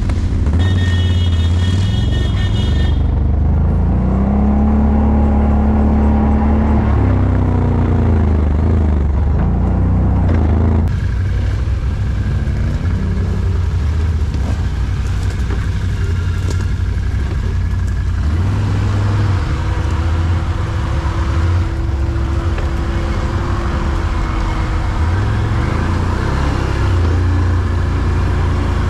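Quad bike (ATV) engine running close to the microphone, its revs rising and falling several times as it rides.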